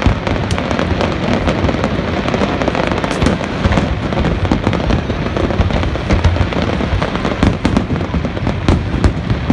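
Large aerial fireworks display in a continuous barrage: many sharp cracks and crackling bursts over a steady low rumble of booms.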